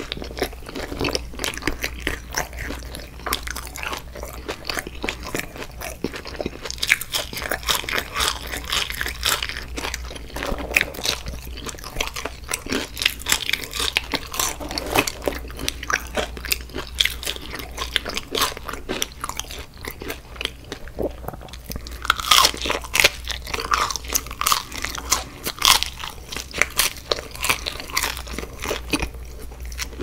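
Close-miked chewing of crispy fried food, with irregular crackling crunches and wet mouth sounds. The crunching gets louder for a few seconds past the twenty-second mark.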